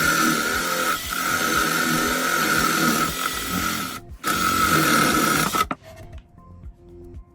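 A power tool's motor running steadily, dropping out for a moment about four seconds in and stopping abruptly near six seconds; faint music follows.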